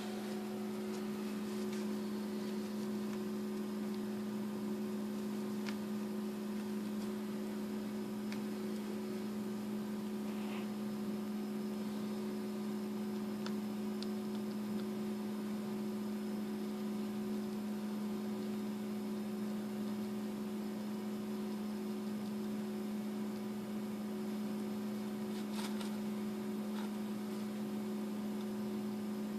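A steady low electrical hum at an even level, with a few faint scattered ticks.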